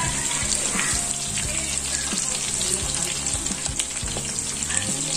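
Marinated milkfish (bangus) pieces frying in hot oil in a pan: a steady sizzle with many small pops and crackles.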